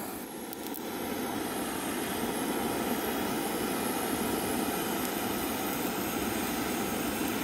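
Handheld butane torch burning at full flame against charcoal, a steady hiss.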